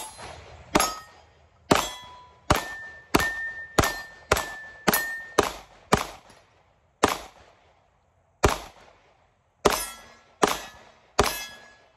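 Glock 43X 9mm pistol fired in a rapid string of about fourteen shots, most about half a second apart, slowing near the end. Several shots are followed by a short metallic ring as the rounds strike steel targets.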